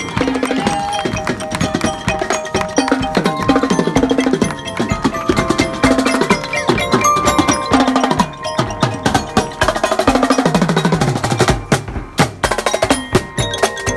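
Marching band playing a tune, with glockenspiels (bell lyres) carrying the melody over snare and bass drums keeping a steady marching beat.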